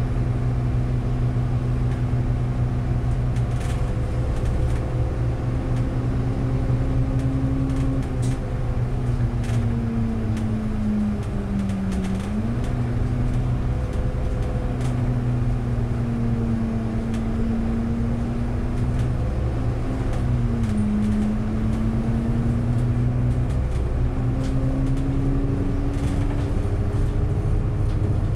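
Bus running along the road, heard from on board: a steady motor hum with a tone that slowly sags and rises with speed, dipping noticeably twice, over constant road noise.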